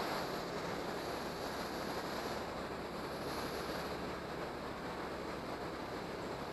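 Steady rushing noise of moving air, even throughout.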